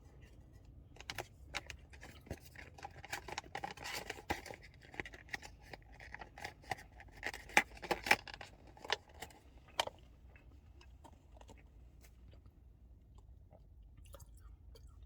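Someone chewing a breadcrumb-coated Cumberland snack egg close to the microphone. Quick crunchy crackles and clicks run for about ten seconds, then die away to a faint low hum.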